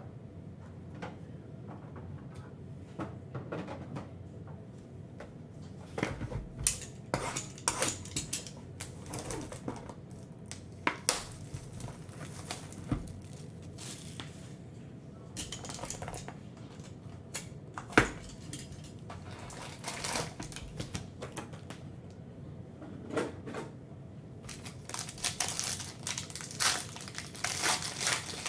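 Clear plastic shrink wrap crinkling and tearing as it is peeled off a cardboard box of trading cards, with scattered taps and clicks from the box being handled. One sharp tap stands out about two-thirds through, and the crinkling grows denser near the end.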